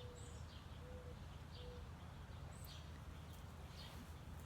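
Faint birds chirping, with three short, steady low notes in the first two seconds, over a steady low rumble.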